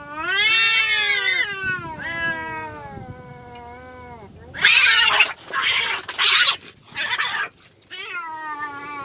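Two domestic cats in a fighting standoff: long, wavering yowls, then about four loud, harsh hisses past the middle, and another yowl near the end. These are threat calls before a fight.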